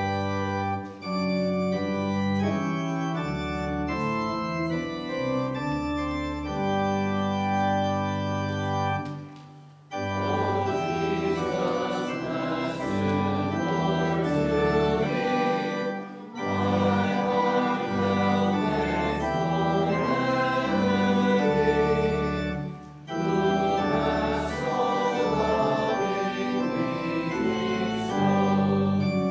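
Church organ playing a hymn introduction in held chords. About ten seconds in, the congregation joins in singing the hymn with the organ, with short breaks between lines.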